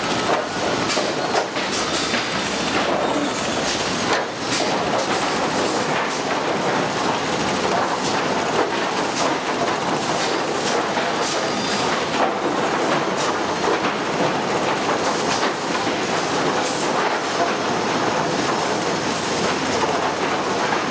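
Sawmill lumber stacking machinery running: boards and chain conveyors clattering steadily, with frequent sharp knocks of wood on wood and metal.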